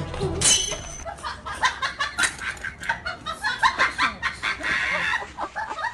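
Chickens clucking and squawking: a quick, irregular run of short calls, with one sharp rising squawk about half a second in.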